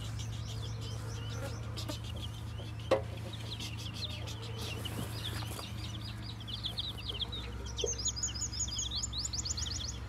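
Flock of small birds and chickens chirping and clucking: rows of short, high chirps that grow busier in the second half, over a steady low hum. A single knock about three seconds in.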